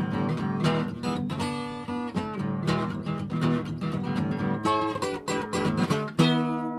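Acoustic guitar strumming the closing chords of a song, ending on a final chord struck about six seconds in that rings on and fades.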